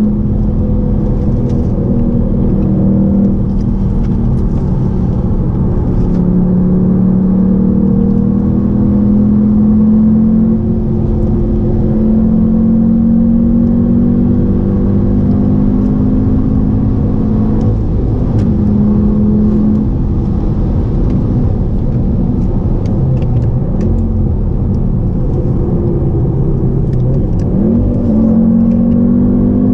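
2016 Audi TTS's turbocharged 2.0-litre four-cylinder engine pulling under way, with road rumble beneath. The engine note holds and drifts in pitch, changes about two-thirds of the way in, and rises then steps near the end as the gears are worked.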